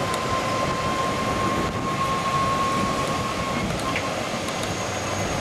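Steady running noise of a golf cart on the move, with a thin steady whine that fades out about three and a half seconds in.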